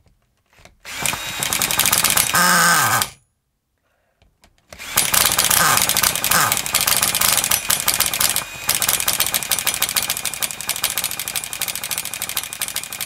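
Small nitro glow engine of an HPI Firestorm RC truck running, falling in pitch and stalling abruptly about three seconds in, then starting again and running on. It is struggling to stay running cold with the tickover set low, which the owner puts down to fuel not being pushed in properly.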